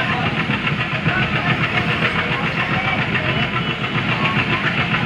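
WDM3A Alco diesel locomotive's 16-cylinder engine chugging hard under load, heard from the train behind it, with a rapid, even pulse. It is mixed with the steady rumble of the coaches running on the rails.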